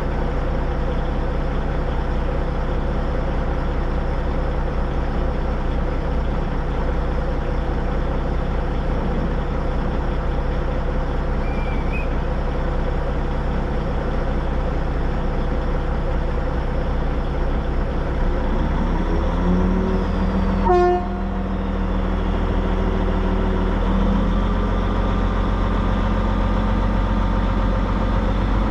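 Narrow-gauge steam locomotive standing at a halt, running with a steady mechanical hum of several held tones. The tones shift about two-thirds of the way through, with a brief sharp sound around then.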